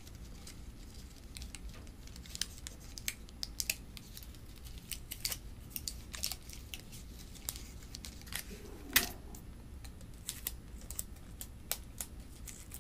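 Tape being pulled, torn and pressed around plastic drinking straws, with irregular crackles and clicks as the straws are handled, and one louder crack about nine seconds in.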